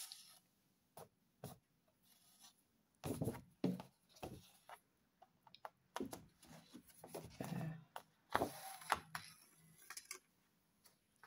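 Scattered rubbing, rustling and light taps of a stiff paper card being handled and turned over on a wooden table, with a needle and thread pulled through its punched holes.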